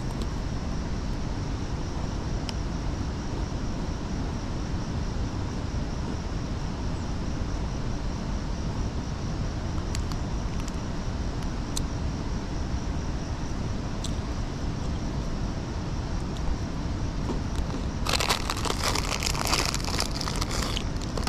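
Steady background rushing noise with a few faint clicks. Near the end, a plastic biscuit wrapper crinkles and crackles as it is handled.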